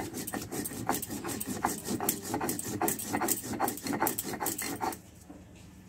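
Stone grinder (nora) rolled and rubbed back and forth on a textured stone grinding slab (shil), grinding spice paste: a rhythmic stone-on-stone grinding, about four strokes a second, stopping about five seconds in.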